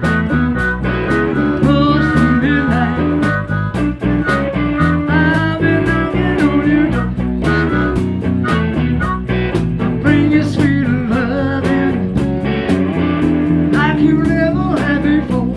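Live blues band: an amplified harmonica solo with bending, wavering notes over electric guitar, bass and drums.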